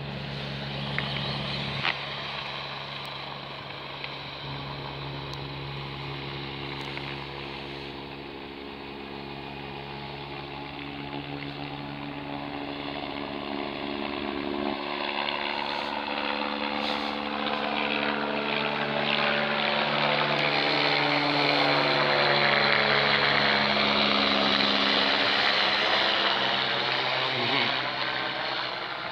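Air ambulance helicopter taking off and climbing away, its rotor and turbine sound growing louder as it comes close overhead, with a sweeping, phasing sound at its loudest, then starting to fade near the end.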